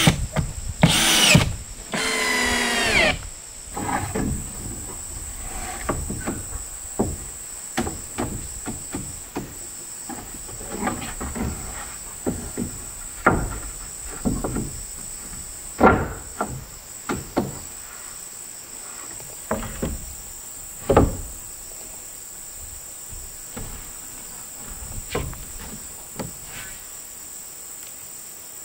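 A power drill runs briefly near the start, then scattered knocks and taps of wood being handled.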